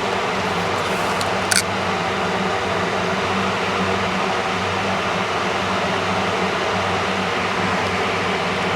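Electric fan running steadily, a loud whooshing noise with a low hum under it. A single short click about a second and a half in.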